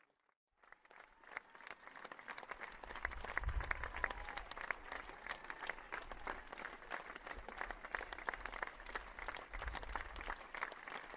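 Audience applauding: many people clapping together, swelling up over a couple of seconds after a brief moment of silence, then holding steady.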